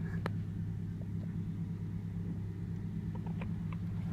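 A steady low mechanical hum, with a few light clicks of buttons being pressed on a handheld car scan tool, once near the start and several near the end.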